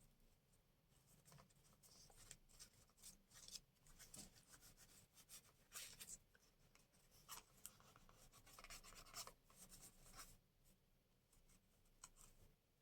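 Faint, scattered rustles and light scratches of paper and craft materials being handled and pressed down, with short pauses between.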